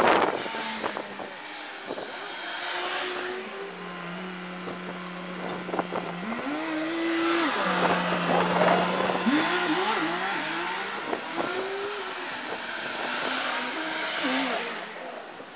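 Street traffic passing below: a car goes by at the start, then a city bus with a steady low hum whose pitch rises and falls several times as it drives past about halfway through, and two more cars rush by near the end.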